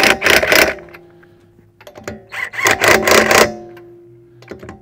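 Impact wrench hammering wheel lug nuts in two short bursts, one at the start and one about two and a half seconds in, with background music under it.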